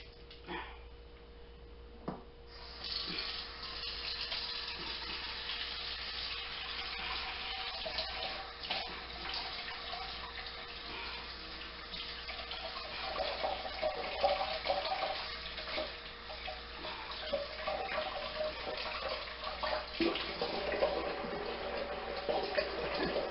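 Kitchen tap running into a stainless steel sink as greasy hands are washed with dish detergent, the water coming on about three seconds in after a couple of light knocks.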